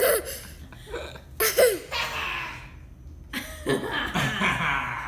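Short throaty vocal bursts and laughter: a brief loud one about a second and a half in, and a longer, breathier one about four seconds in.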